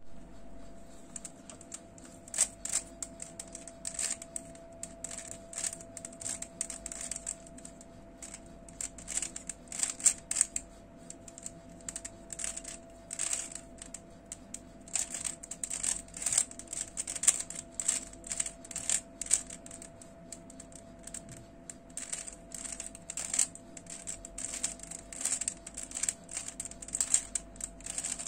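Stickerless plastic 3x3 Rubik's cube being turned by hand: quick runs of clicking layer turns with short pauses between them.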